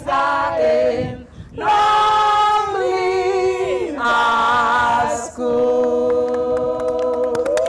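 A group of women singing a cappella, drawing out the last phrase of a school anthem in a few long held notes.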